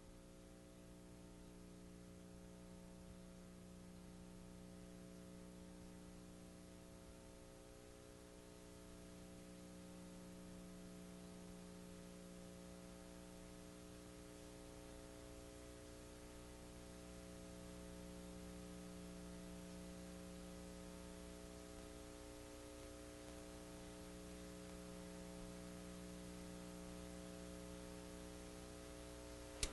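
Near silence: a faint, steady electrical hum of several tones over light hiss.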